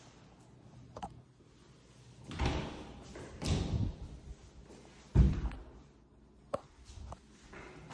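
An interior closet door being handled: a click, two brief scraping swishes, then a sharp thump about five seconds in, followed by a couple of light latch-like clicks.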